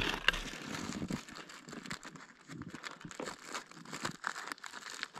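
Plastic zip-top bag crinkling and rustling as it is handled, in quick irregular crackles.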